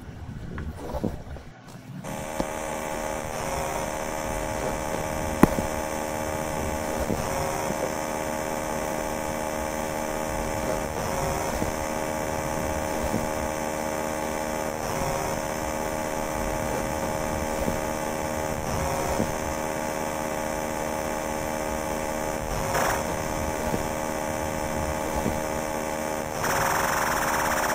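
A steady droning buzz of many held tones that starts suddenly about two seconds in. A faint sweep comes back roughly every four seconds, and the buzz turns brighter and louder near the end.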